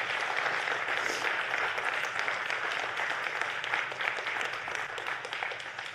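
Congregation applauding: a steady patter of many hands clapping, tapering off near the end.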